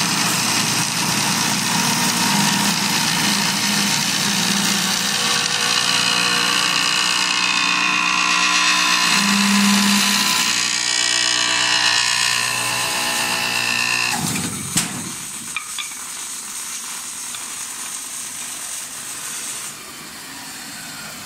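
Automatic wood copy lathe cutting a spinning wooden handle blank: a loud, dense cutting noise with steady tones. About fourteen seconds in the cutting stops with a click, and the machine runs on more quietly.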